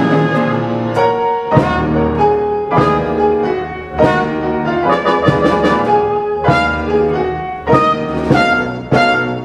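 Show-tune overture played by brass and piano, with trumpets and trombones over piano chords and many sharply accented notes.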